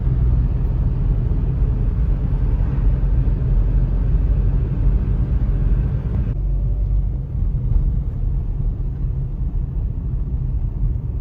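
Steady low rumble of a car on the move, road and engine noise; the higher hiss in it drops away about six seconds in.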